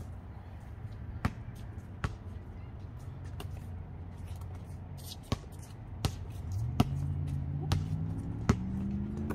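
A basketball bouncing on an outdoor concrete court: single sharp slaps at irregular intervals, roughly one a second. About two-thirds of the way in, a low hum joins and slowly rises in pitch.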